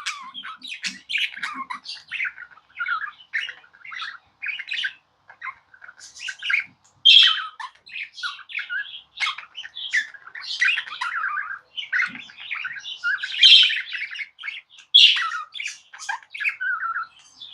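Budgerigar chattering and warbling: a fast, continuous run of short chirps and squawks.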